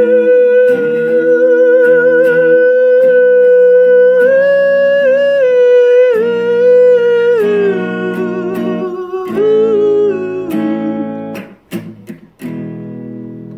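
A man's wordless held sung note with slight vibrato over electric guitar chords. The note steps down twice in the second half, and the guitar breaks off into a few short strums about twelve seconds in.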